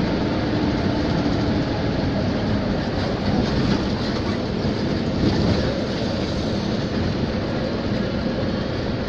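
Steady road and wind noise from a moving vehicle travelling along a highway.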